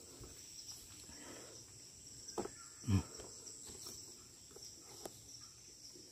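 Steady high-pitched chirring of forest insects, with a few soft knocks and thumps; the loudest thump comes about three seconds in.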